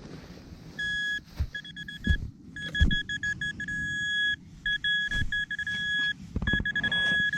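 Metal detector giving a target signal at one steady high pitch: runs of short beeps and longer held tones, starting about a second in and breaking off and resuming several times. A few low knocks sound under it.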